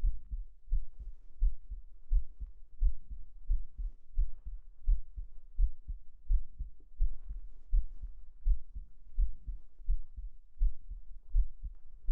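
A person's heartbeat recorded close up: steady, deep thumps at a relaxed pace of about 85 beats a minute.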